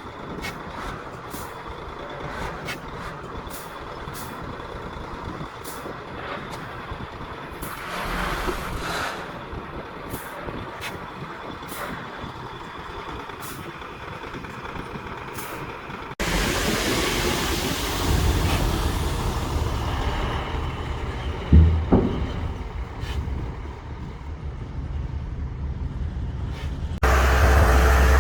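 Diesel engines of heavy earthmoving machinery running, with many sharp clanks and clicks over the first half. About halfway through the sound switches abruptly to a louder, deeper engine sound with one loud knock, and it switches again to louder running near the end.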